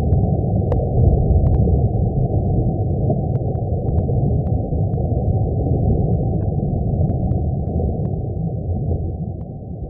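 Steady, deep, muffled rumbling roar with faint scattered crackles over it, fading out near the end: a sound effect presented as the sound of the Sun.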